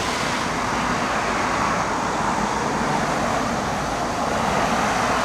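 Steady rushing noise of road traffic, with no distinct events.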